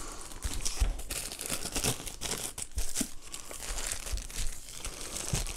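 Plastic packaging crinkling and rustling in the hands as a jump starter is unwrapped: a steady run of irregular crackles.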